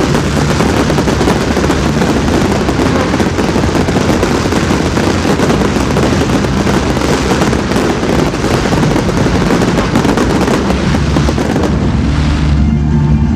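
Fireworks display: dense, continuous crackling and popping from many shells bursting at once over a low rumble of booms. Near the end the crackling falls away, leaving the low rumble.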